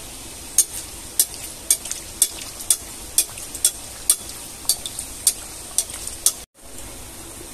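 Hot oil sizzling steadily as a rose-shaped puri deep-fries in a kadhai, with sharp ticks about twice a second as a slotted spoon works in the oil. The sound cuts out for a moment near the end.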